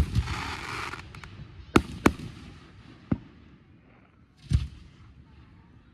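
Aerial fireworks bursting. A bang at the start is followed by about a second of crackling, then come two sharp bangs close together about two seconds in, a single bang near three seconds, and a deeper boom around four and a half seconds.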